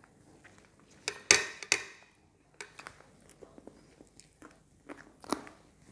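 Close-up eating sounds of pancit canton noodles: wet mouth smacks and chewing, loudest in a quick cluster about a second in, with scattered small clicks and ticks afterwards.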